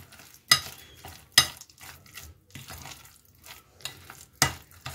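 A bare hand squishing and mixing thick, wet ground-rice and curd batter with chopped vegetables in a glass bowl: a string of short wet slaps and squelches, irregularly spaced, the loudest about half a second in, about a second and a half in and near the end.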